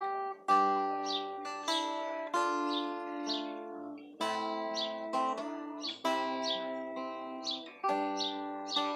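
Acoustic guitar (violão) strumming chords, about seven strokes, each chord ringing on until the next.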